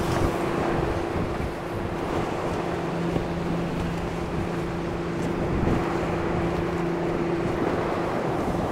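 Wind noise on the microphone over the wash of the sea, with a steady low hum running under it.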